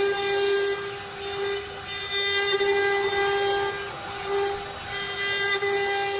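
The spindle of a two-head 6090 CNC router whines steadily at one high pitch while its bit engraves letters into a pine board. The sound swells louder with a hiss in three stretches as the bit cuts.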